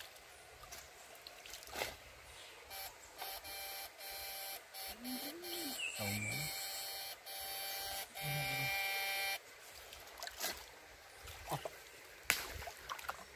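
Homemade electrofishing inverter buzzing in repeated on-off bursts as its probe is worked in the water, a steady electrical buzz that stops a little after nine seconds in. A brief voice sound and a few sharp knocks come later.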